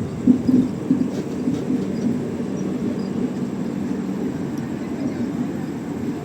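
Rajdhani Express train rolling slowly out on departure: a steady low rumble of coaches and wheels on the rails, with a few irregular louder knocks in the first couple of seconds.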